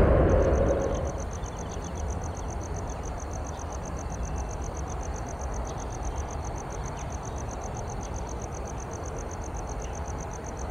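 Jet aircraft noise dying away over the first second or so. It leaves a steady low rumble and a high-pitched pulsing call at about six pulses a second, steady throughout.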